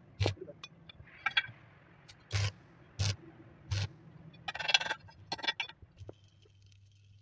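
Arc welding on a steel steering-linkage end: a series of short crackling arc strikes, about six in all, with a longer burst of crackle in the middle. A faint steady hum follows near the end.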